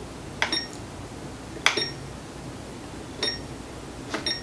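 Button presses on a handheld FPV monitor, each a click with a short high electronic beep, repeated about a second apart and twice in quick succession near the end, as the receiver steps through its frequency channels looking for the camera's signal.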